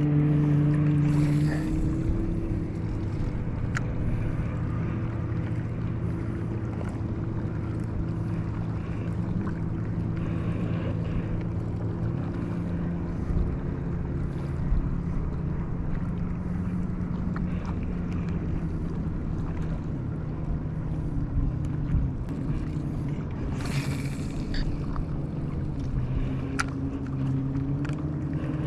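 A boat's engine running steadily with a low, even drone that shifts slightly in pitch now and then, over a haze of wind and water noise.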